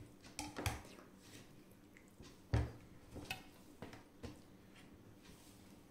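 Eating by hand from a steel plate: soft squishes and light taps as fingers break up sticky honey chicken and mix it into rice, with a louder knock about two and a half seconds in.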